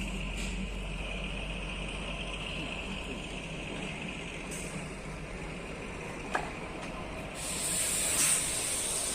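Kalka–Shimla narrow-gauge toy train running, heard from on board: a steady rumble with a high whine. There is a sharp click about six seconds in, and a loud hiss starts about seven seconds in.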